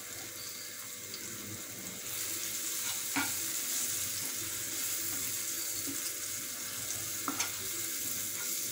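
Sliced onions and tomatoes with freshly added spice powders sizzling in hot oil in a frying pan. About two seconds in the sizzle gets louder as a spatula stirs the mixture, and the spatula knocks lightly on the pan a few times.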